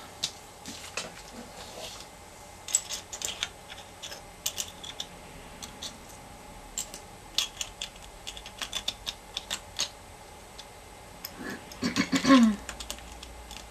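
Seashells clicking and clinking as they are picked up, moved among other shells and set onto a canvas, with irregular light taps throughout and a louder cluster of knocks near the end.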